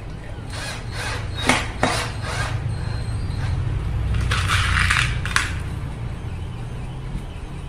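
Metallic clicks and knocks from a cordless drill-driver and bolts being handled against an aluminium-profile frame, the sharpest two about a second and a half and two seconds in, then a denser rattling burst lasting about a second near the five-second mark.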